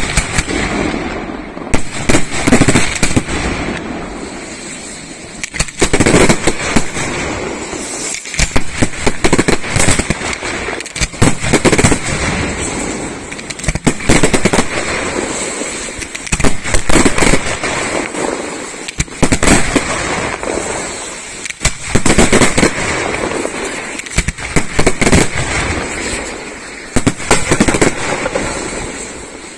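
Aerial fireworks display: shells bursting in rapid volleys of sharp bangs every couple of seconds, each volley trailing off before the next.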